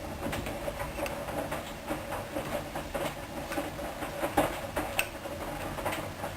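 Hoover DYN 10124 DP washing machine running a wash, its drum turning with a steady hum and a dense patter of irregular clicks and splashes from the laundry and water inside.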